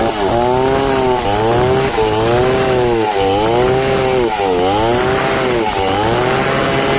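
Large two-stroke chainsaw ripping lengthwise through a log at high revs. Its engine pitch sags and recovers about once a second as the chain bites into the wood under load.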